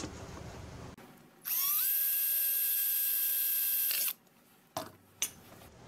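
Cordless drill with a small bit spinning up and running steadily for nearly three seconds, drilling a hole through the side of an unopened aluminum drink can, then stopping. Two light clicks follow near the end.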